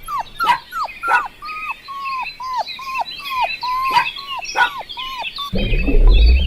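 An animal calling over and over in short, falling cries, about four a second, with many small birds chirping behind it. A low rumble comes in near the end.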